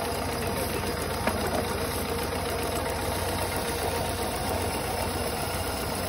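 An engine running steadily, with a low hum and one short click about a second in.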